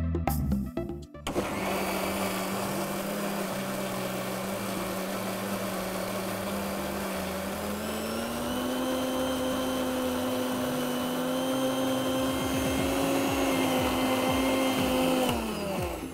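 Electric mixer grinder with a stainless-steel jar running, grinding roasted spice powder and coconut into a curry paste. The motor starts about a second in, rises in pitch partway through, then winds down near the end.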